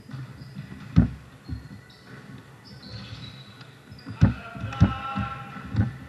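Basketball bouncing on a gym floor during play: one loud bounce about a second in, then a quicker run of bounces near the end, with short high squeaks in between.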